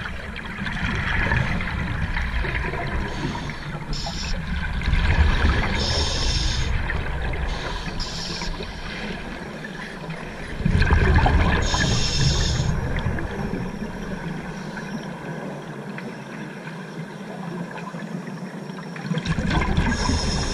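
Scuba regulator exhaust bubbles heard underwater, coming in short bursts every few seconds with each exhalation, over a low rumble of water noise that drops away for a few seconds late on.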